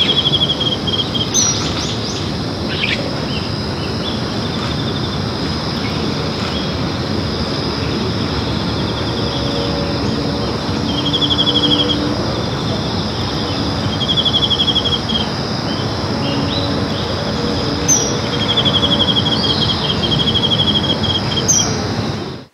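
Short, rapid trilled bird calls repeating every few seconds over a steady outdoor hiss, with a constant high-pitched whine above them; all sound cuts off suddenly at the end.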